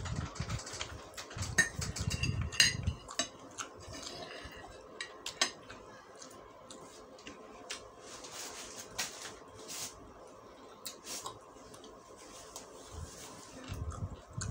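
Metal spoon and fork clinking and scraping on a ceramic plate, many sharp clicks over the first few seconds, then a few scattered clicks and rustling.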